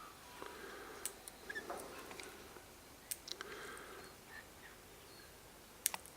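Faint bird chirps and short calls, with a few sharp clicks scattered through.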